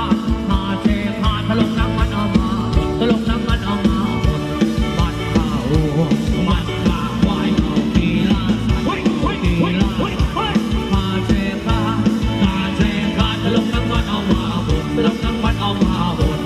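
Live electric band playing upbeat Thai ramwong dance music, with a regular drum beat and melody over it.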